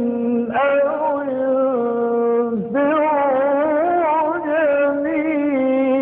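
A man reciting the Quran in the melodic, drawn-out style, holding long ornamented notes whose pitch wavers up and down. The voice breaks off briefly twice, about half a second and two and a half seconds in.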